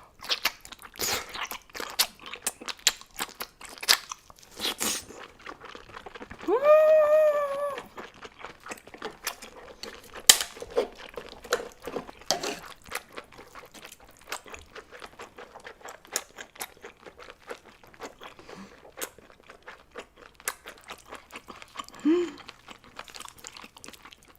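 Close-up eating sounds of chewing giant octopus tentacle with its suckers: dense, irregular wet clicks and crunches. A hummed "mmm" of enjoyment rises and holds for over a second about six and a half seconds in, and a brief one comes near the end.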